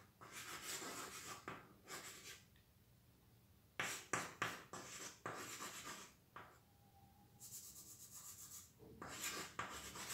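Chalk scratching on a chalkboard as a word is written by hand, in quiet bursts of short strokes with brief silent pauses between the letters.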